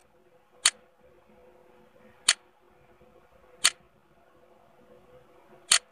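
Computer mouse clicking four times, single sharp clicks about one to two seconds apart, over a faint steady hum.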